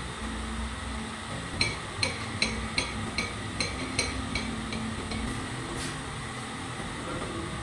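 Hammer striking metal: about a dozen ringing blows at a steady pace of roughly two and a half a second, over a steady low hum.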